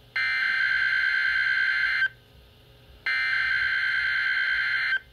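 NOAA Weather Radio SAME digital header for a Required Weekly Test, heard through a weather radio receiver's speaker: two harsh data-tone bursts of about two seconds each, a second apart, each starting and stopping abruptly.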